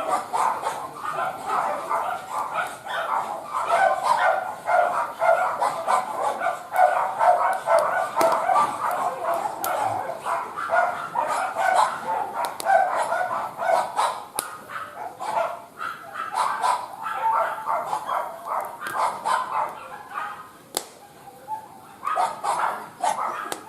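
A dog whining and yipping almost without a break, easing off for a few seconds near the end before picking up again, with scattered sharp crackles throughout.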